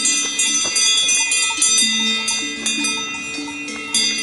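Cowbells on grazing cows' collars clanging irregularly, several bells of different pitches ringing over one another.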